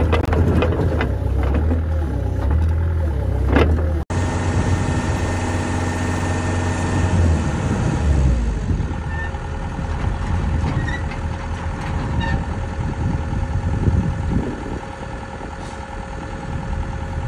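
Cat mini excavator's diesel engine running with a heavy low rumble. The sound breaks off abruptly about four seconds in and resumes as a steadier machine hum, with a thin steady whine joining partway through.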